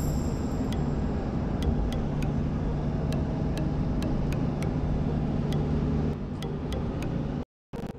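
Steady road and engine noise inside a moving car's cabin, with a low hum and a light, quick ticking over it. The sound cuts out for a moment near the end.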